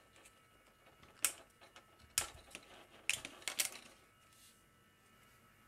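A few light clicks and taps of small plastic parts and a circuit board being handled: one click about a second in, another about two seconds in, and a quick cluster of clicks a little after three seconds.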